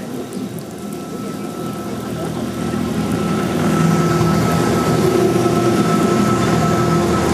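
Wengernalpbahn electric rack-railway train passing close alongside, its motors giving a steady whine and hum that grows louder as it draws level.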